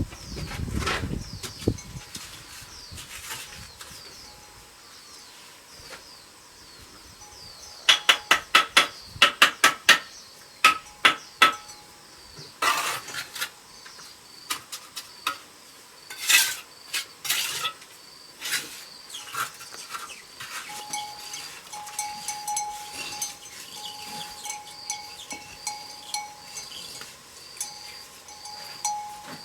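Sharp metallic taps and clinks of hand tools at work, coming in quick clusters of several strikes and then singly, over a faint, steadily repeating high chirping in the background.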